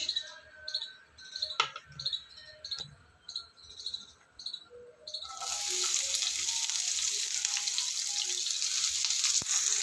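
Chopped onion dropped into hot mustard oil in a nonstick frying pan, sizzling loudly and steadily. The sizzle starts suddenly about halfway in, after a quiet start with a few faint clicks.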